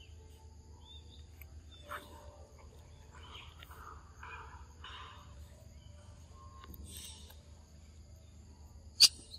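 Steady high drone of insects over a low hum, with a few short soft sounds in the first half and a single sharp click about nine seconds in.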